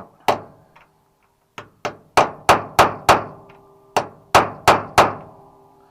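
Hammer tapping a sharp punch set off-centre on a snapped-off screw stub, trying to turn it out. About eleven sharp metallic blows, each ringing briefly: a single blow, a pause, then runs of taps about three a second.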